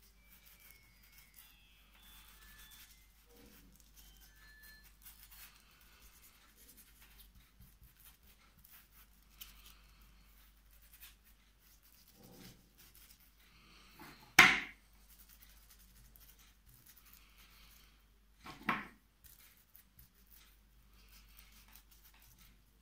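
Paintbrush strokes on paper, a faint scratchy rubbing as paint is brushed and dabbed on. Two short, much louder noises cut in about fourteen and eighteen seconds in, the first the louder.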